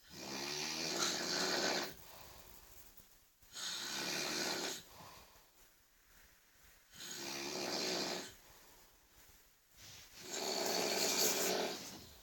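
A person snoring heavily: four long snores about three and a half seconds apart, alternating between a rattling, pitched snore and a breathier, hissing one, with quiet breaths between them.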